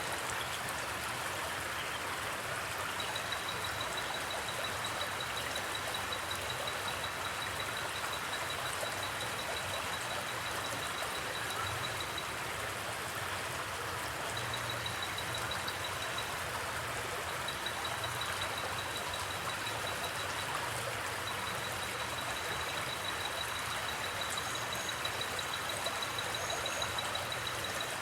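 Steady rush of a flowing river. Over it, crickets trill on one high, even note in long runs that stop and start again.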